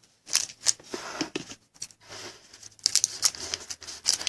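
Trading cards being handled: a run of irregular sharp snaps, rustles and crinkles as cards are slid and flipped.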